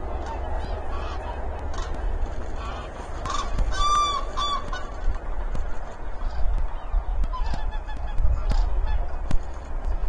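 A flock of large water birds honking and calling, with many short calls throughout and one loud, clear ringing call about four seconds in.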